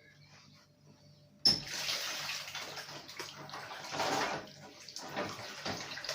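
A kitchen tap is turned on about a second and a half in and runs, with hands being washed under the stream.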